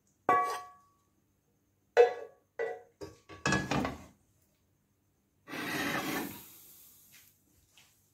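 A serving utensil knocking and clinking against a plate several times, each strike ringing briefly, the loudest about two seconds in. A little past halfway comes a noisy rush lasting about a second and a half that fades away.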